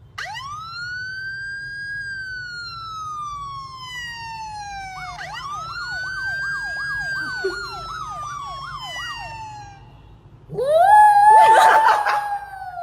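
Siren wailing: a tone that rises, then slowly falls, twice, the second time with a fast warble of about three wavers a second laid over it. About ten and a half seconds in, a louder, rougher, wavering howl comes in and holds.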